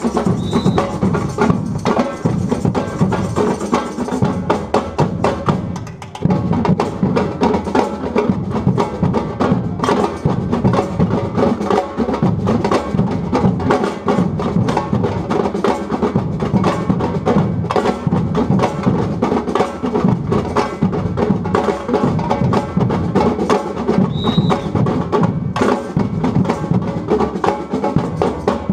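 Percussion band drumming together on large hand-played drums and stick drums in a dense, driving rhythm, with a brief drop in loudness about six seconds in before the full group comes back in.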